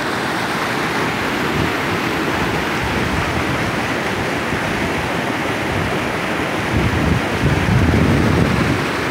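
Mountain stream rushing and splashing over rocks, a steady full hiss of white water. About seven seconds in, wind buffets the microphone with a low rumble for a second or two, the loudest part.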